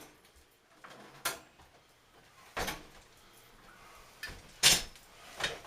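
Refrigerator doors and drawers being opened and shut: a handful of separate sharp clacks and knocks, the loudest a little before the end.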